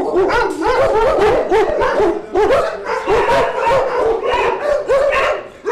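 Many kennelled dogs barking at once, their barks overlapping into a dense, nearly unbroken chorus.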